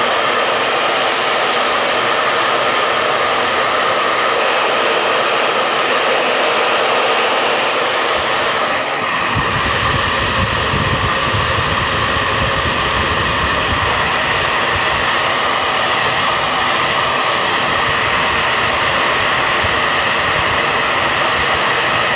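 Handheld hair dryer running steadily on the iPad, a loud continuous blowing whir; a deeper rumble joins in about nine seconds in.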